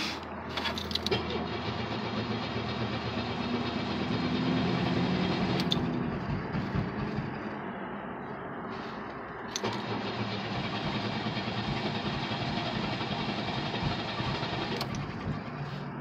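Chevrolet Cavalier's flooded engine cranking and struggling to catch, heard from inside the car. The owner blames the flooding on leaky fuel injector seals.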